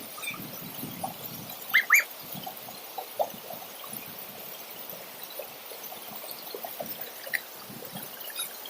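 River water trickling and splashing, with scattered small drips and splashes and two short high chirps about two seconds in.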